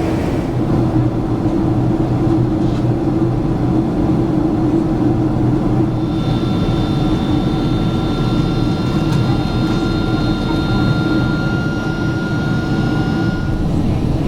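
Steady cabin noise of a Boeing 767-400ER jetliner, a low drone of jet engines and airflow. About halfway through a high thin whine joins it, rising slightly in pitch, and drops away near the end.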